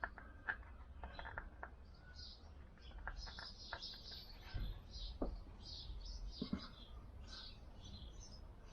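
Faint small-bird chirping, with scattered light metallic clicks and taps from tools and nuts as a stud is wound into a scooter's rear hub.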